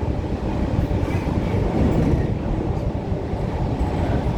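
MTR K-Train running on the line, heard on board as a steady rumble of wheels and running gear.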